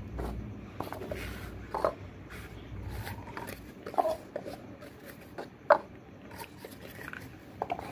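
Paper cups being picked up and set down one by one on a stack: a handful of light, separate taps, the sharpest about six seconds in.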